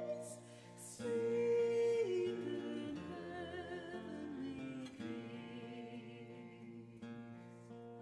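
Slow song: a voice singing long held notes over guitar accompaniment.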